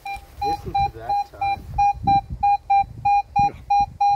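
Minelab Manticore metal detector giving a repeated single-pitched target beep, about three a second, as its coil is worked back and forth over a buried target, with faint rustling of grass under the coil. The screen reads target ID 92, a high-conductive target such as a silver coin.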